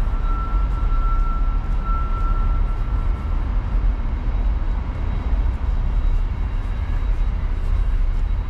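City street ambience: a steady low rumble of passing traffic, with a thin, high steady whine that fades out about three and a half seconds in.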